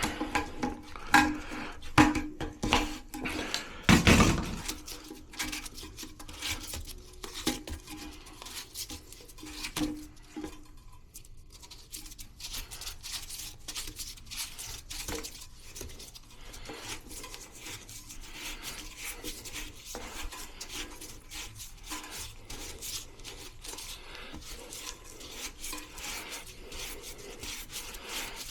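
Hard parts being handled during toilet repair work: a few sharp knocks and clinks in the first seconds, the loudest about four seconds in, then steady scraping and rubbing.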